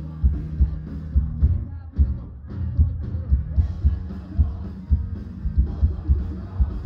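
Rock band playing live through a club PA, heard from within the crowd: a bass-heavy mix with a steady drum beat under guitars and keyboard.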